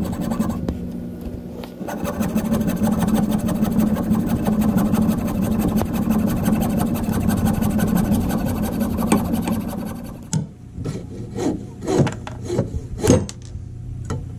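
Coping saw cutting through the wooden end of an axe handle where it sticks up from the axe head's eye, in fast, short, steady strokes for about ten seconds. After that come scattered, separate knocks and taps.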